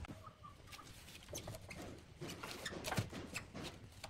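Scattered light knocks and scratchy rustling as hands handle a bark-covered log mounted on a wood lathe, with a sharper knock about three seconds in.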